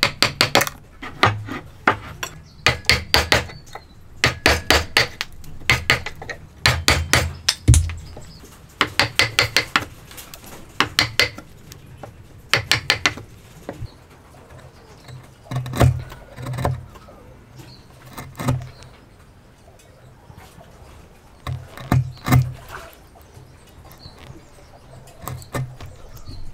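A wood chisel struck in bursts of four to six quick taps every second or two, chopping into a joint cut in a wooden table leg. About halfway through the taps give way to quieter hand paring with only a few scattered knocks.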